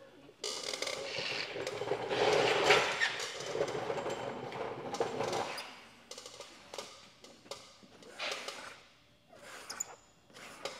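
A plastic squeegee rubbing and scraping along wet paint protection film at a bumper edge. It runs steadily for about five seconds, then comes in short, irregular strokes and clicks.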